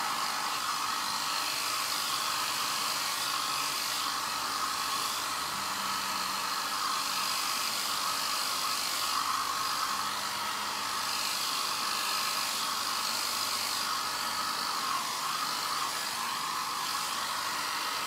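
Small handheld hair dryer running steadily, blowing wet acrylic pouring paint across a canvas.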